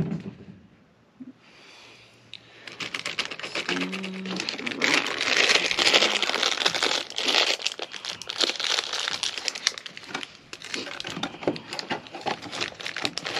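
Clear plastic bag crinkling and crackling as it is handled and opened, loudest a few seconds in.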